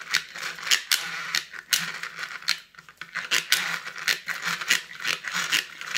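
Toy spin-art machine spinning a paint card in its plastic bowl: a steady motor hum under quick, irregular plastic clicking and rattling.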